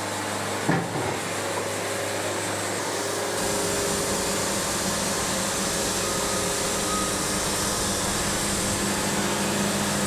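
Wood-Mizer LT70 diesel bandsaw mill running steadily as its band saw cuts along a walnut log. About three seconds in the sound grows a little louder and fuller.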